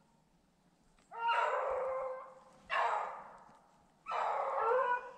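Beagle baying on the trail of a snowshoe hare, the hound's voice giving chase on the scent: three drawn-out bays of about a second each, the first starting about a second in.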